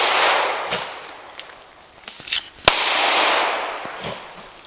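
Pistol shot echoing off the walls of a ravine: the fading echo of one shot at the start, then a second sharp crack a little past halfway that rolls away for about two seconds. A few faint clicks come in between.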